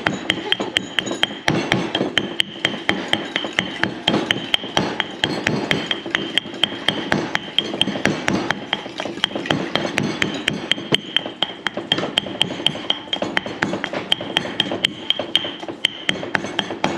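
Stone pestle pounding curry paste in a heavy stone mortar: a steady run of sharp knocks, about four a second, as the ingredients are crushed to a wet paste.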